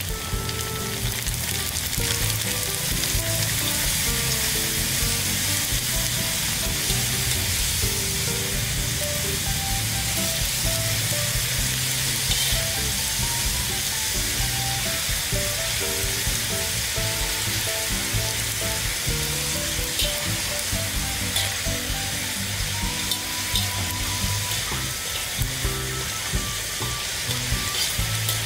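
Flat egg noodles sizzling steadily as they fry in hot oil in a wok, turned now and then with metal tongs.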